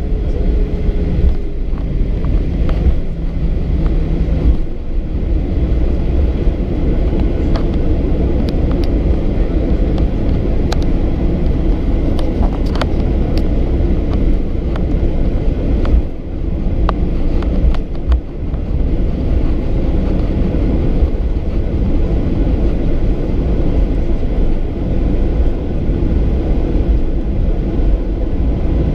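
Boeing 737-800 airliner's CFM56 jet engines and airframe: a loud, steady rumble with a few short knocks and rattles between about 7 and 13 seconds in.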